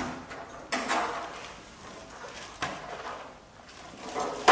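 Knocks and clunks of the sheet-steel rear service door on a Nederman C10 welding fume filter unit being unlatched and opened, with a louder clunk near the end.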